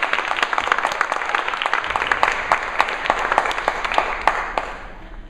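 Audience applauding, a dense patter of hand claps that fades away near the end.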